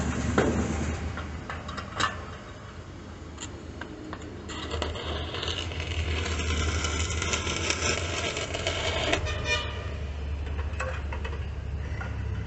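Stick arc welding on a steel motorcycle muffler shell: the arc crackles and hisses for about five seconds, starting around four and a half seconds in, and sputters out in quick ticks. A steady low hum runs underneath.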